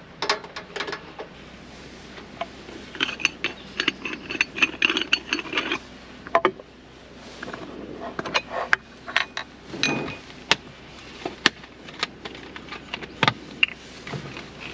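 Irregular clicks, knocks and clinks of camp cooking gear being handled, with a dense run of clicking a few seconds in and a brief metallic ring about two-thirds of the way through.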